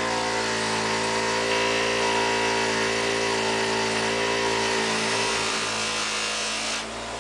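Electric polishing wheel running with a steady motor hum, as a reloading die's expander ball and decapping pin are buffed on it. A hiss of the steel part against the wheel builds about a second and a half in and stops near the end, while the motor keeps running.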